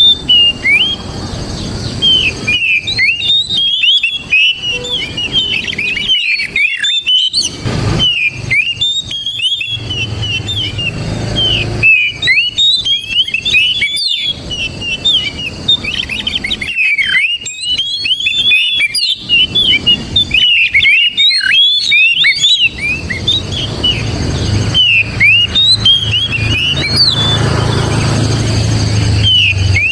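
Oriental magpie-robin singing a fast, unbroken stream of varied whistles and chirps, with a few short pauses near the end. A low rumble sits beneath the song at times.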